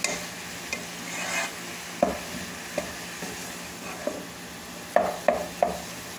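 Wooden spatula stirring and scraping ground chicken in a nonstick pan, knocking sharply against the pan a few times, three knocks in quick succession near the end, over a faint sizzle of the meat frying.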